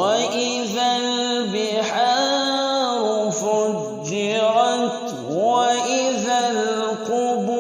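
A man's voice chanting Quran recitation: slow, melodic phrases held on long, ornamented notes that glide up and down in pitch, with brief dips between phrases.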